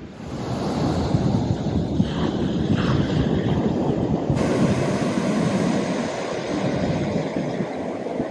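Ocean surf washing in, with wind rumbling on the microphone.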